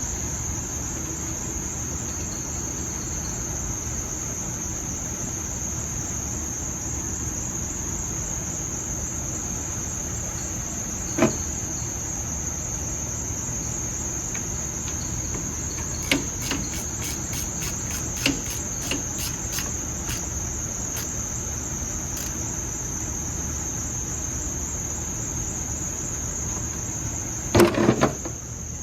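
Steady high-pitched chorus of crickets. A single sharp knock comes about a third of the way in, a quick run of light ticks around the middle, and a short clatter of louder knocks near the end.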